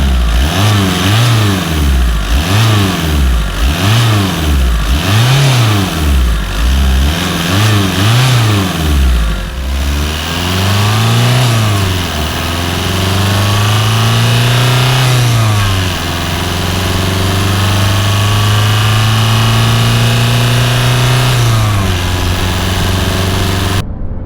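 Audi A3 1.9 TDI four-cylinder turbodiesel engine being revved: a string of quick blips, about one a second, then two slower rev ramps up and down. It is then held at a steady raised rpm for several seconds before dropping back, and cuts off suddenly near the end.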